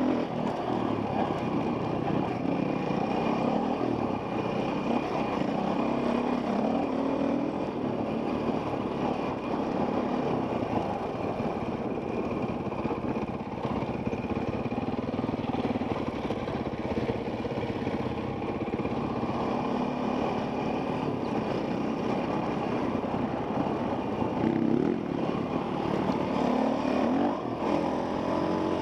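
Enduro dirt bike engine running and revving up and down continuously while being ridden over rock and sand, heard from a helmet-mounted camera.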